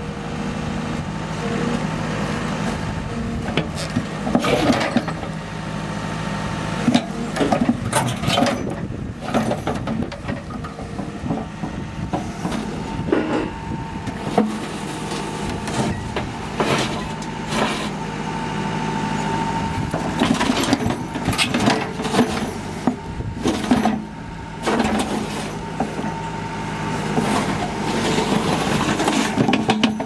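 Backhoe's diesel engine running steadily under hydraulic load, while its steel bucket scrapes and knocks against rock and hard clay in a deep trench, with many sharp clanks and scrapes.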